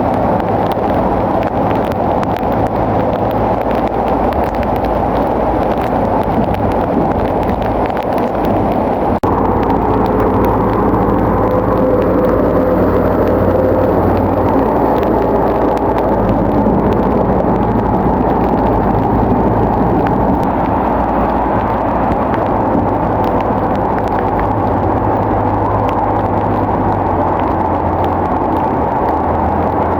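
Bulldozer's diesel engine running steadily, with an abrupt shift in the sound about nine seconds in.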